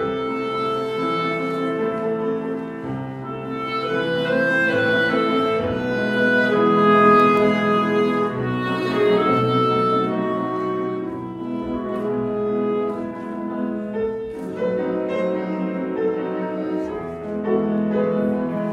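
Clarinet playing a melody of held notes with grand piano accompaniment.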